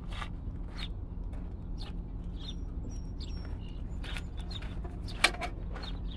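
A small bird chirps a few times, thin and high, over a steady low hum. Scattered light clicks and knocks run through it, with one sharp knock about five seconds in.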